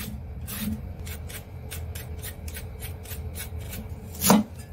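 Hand-held vegetable peeler scraping strips of peel off a raw carrot in quick repeated strokes, about three a second, with one louder knock near the end.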